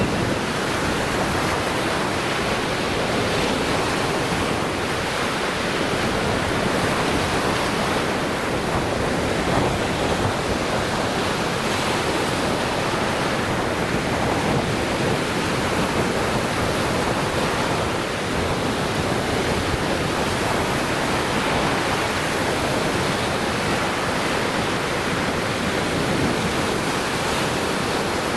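Lake Michigan surf: waves washing on the shore in a steady, continuous rush with no distinct single breakers.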